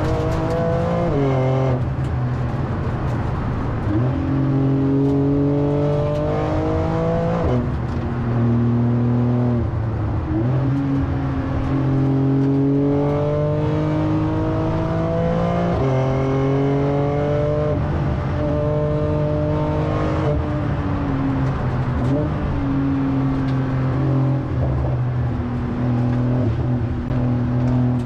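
A Porsche 911 Turbo S's twin-turbo flat-six racing under load, heard from inside the cabin. The engine note climbs in pitch as the car accelerates and drops back again several times.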